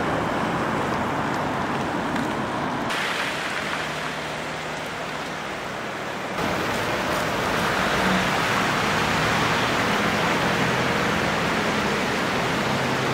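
Street ambience of traffic on wet, slushy roads: a steady hiss of tyres and engines with a faint low engine hum, changing abruptly twice, about three and six and a half seconds in.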